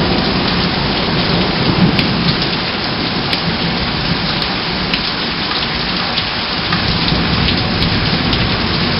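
Heavy rain falling steadily in a thunderstorm, with a low thunder rumble underneath and a few sharper drop taps.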